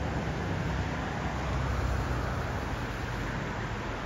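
Steady outdoor rushing noise with a low rumble, swelling slightly about two seconds in.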